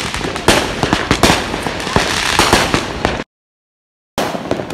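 Fireworks going off: a dense, continuous stream of bangs and crackling pops. Near the end the sound drops out completely for about a second, then the popping resumes.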